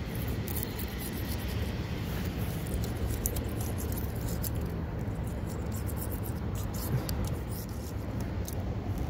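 Metal scraper chipping and scraping loose old silicone sealant off a fiberglass roof seam, a run of small scratchy clicks over a steady low rumble.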